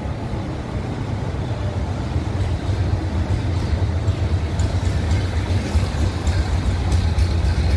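Highway traffic: a loaded truck and a bus approaching, their engine and tyre rumble growing louder about a third of the way in.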